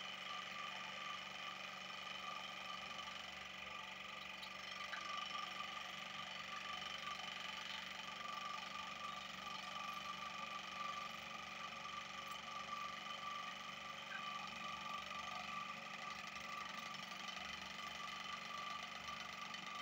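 Oral-B electric toothbrush running in the mouth, a steady high motor hum with a slight fluttering texture as it brushes the teeth.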